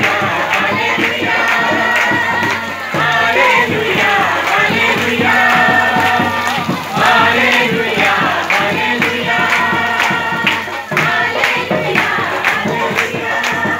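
Congregation singing a worship song together through a microphone and speakers, with a quick steady beat underneath.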